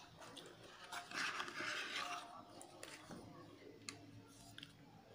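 Faint rustling and scraping of a paper and cardboard packaging insert as a hair trimmer is slid out of it, followed by a few light clicks as the plastic trimmer is handled.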